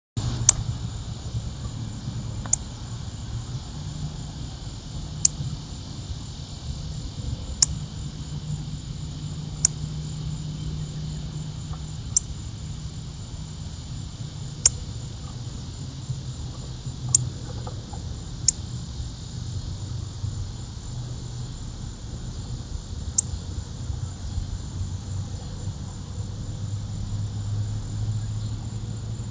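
A steady, high-pitched chorus of crickets or similar insects, over a low rumble. Sharp single clicks or taps come every two seconds or so.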